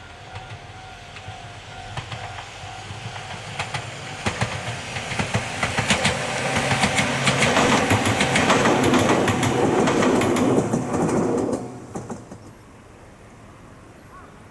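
Ohmi Railway set 101F, a two-car electric train, approaching and passing close by, its wheels clattering over the rail joints as it grows louder. The sound stops suddenly about twelve seconds in.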